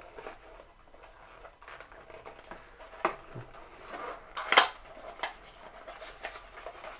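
Cardboard packaging handled and unfolded by hand: light rustling and scraping with a few sharp taps and clicks, the loudest about four and a half seconds in.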